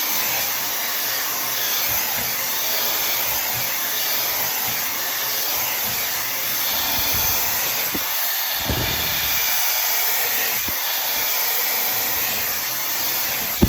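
Tymo Air Hype hair dryer blowing hot air steadily as it dries and straightens hair, with a few brief low bumps from handling.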